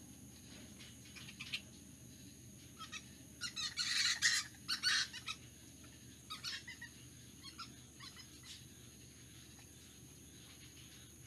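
Flying fox fruit bats calling: short squawks in irregular clusters, loudest about four to five seconds in, with fainter calls a few seconds later.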